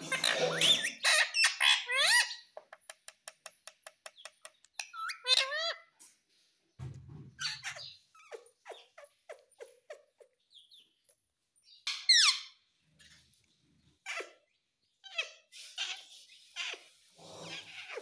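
Indian ringneck parakeet chattering and calling, with a fast run of clicks, a few short sweeping chirps, a sharp falling squawk about twelve seconds in and scratchy chatter near the end.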